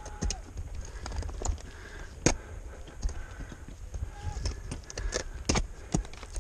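Mountaineers' boots stepping on snow and ice in an irregular walking rhythm, with sharp metal clinks of climbing gear such as ice axes, over a steady low rumble.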